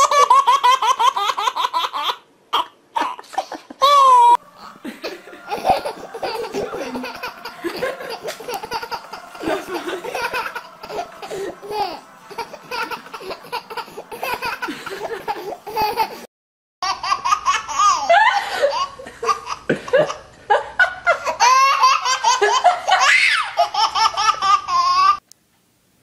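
Babies laughing, one clip after another, in repeated bursts of high-pitched laughter. Abrupt cuts break it, with brief silent gaps between clips.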